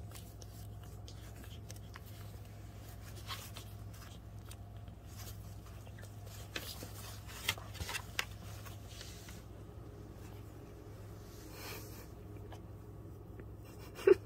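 Soft rustling and scattered small clicks over a low steady hum, with one short, sharper and louder click or squeak near the end.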